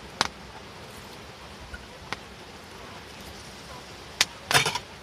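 Wood campfire crackling, with sharp single pops about a fifth of a second in, around two seconds and just past four seconds, then a short rattling run of pops.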